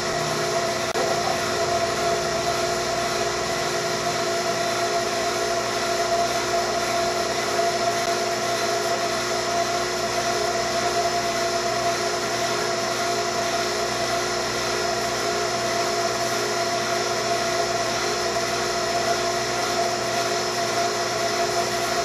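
A 7 CFM HVAC vacuum pump running with a steady, even hum, pulling a deep vacuum on a jar of water so that the water boils and cools.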